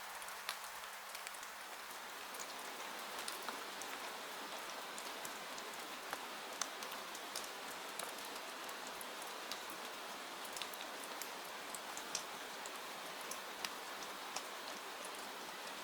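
Steady rain falling, a constant hiss scattered with many sharp little ticks of drops striking surfaces.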